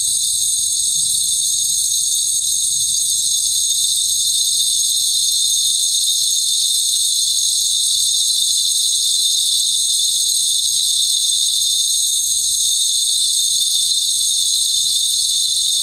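Steady high-pitched hissing shimmer with a few held high tones over it, unchanging and without beat or melody: a sustained drone from the performance's soundtrack.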